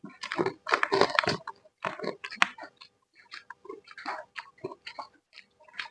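Close-up eating sounds: a person chewing food, with irregular bursts of mouth noises that are busiest in the first second and a half and a sharp click a little past two seconds in.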